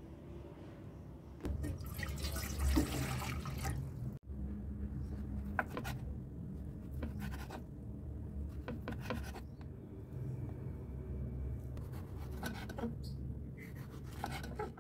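A kitchen knife slicing through a cooked sausage and then a tomato on a wooden cutting board, with short knocks and scrapes of the blade every second or two over a steady low hum. A louder rushing noise fills a couple of seconds before the cutting starts.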